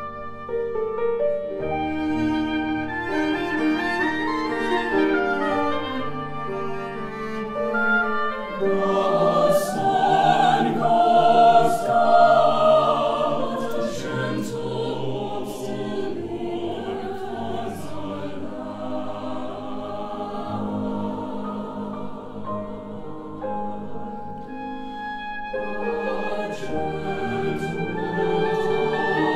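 Mixed choir singing a slow classical choral piece with piano, cello and oboe accompaniment. The instruments play alone for the first eight seconds or so, then the choir comes in.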